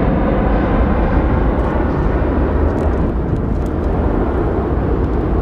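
Jet airliner engines running as the aircraft rolls along the runway: a loud, steady rumble with a hiss on top that slowly fades.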